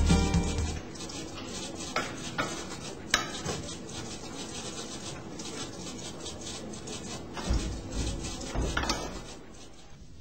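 Scattered light clicks and knocks over a steady hiss, from hands working the exterior control handle and flap of an Airbus A320 passenger door. Strummed guitar music fades out in the first second.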